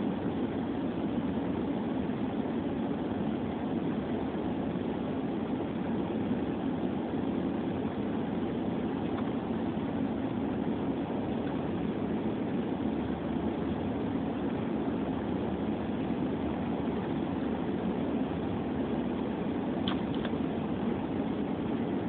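Steady low rumble of a car heard from inside its cabin, with one short click near the end.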